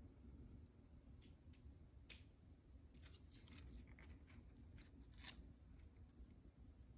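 Near silence with faint rustling and small crackles from about a second in: a hand brushing and handling the leaves of a basket plant's plantlets.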